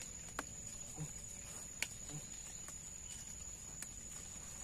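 Insects droning steadily at one high pitch, with three sharp clicks spread through.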